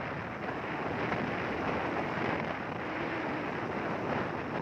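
Wind rushing and buffeting over a phone's microphone while riding in the open on a moving vehicle, with the ride's road noise mixed in.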